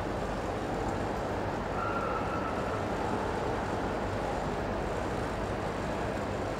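Steady ambient noise of a large indoor exhibition hall: a distant crowd murmur over the hall's constant hum, with no single event standing out.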